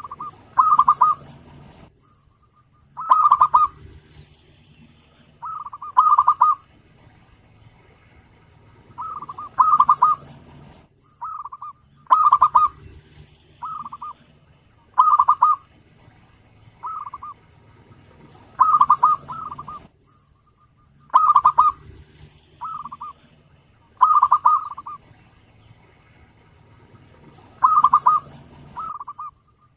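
Zebra dove (perkutut) cooing: a short phrase of quick, rolling coo notes about every two to three seconds, with a few shorter phrases in between.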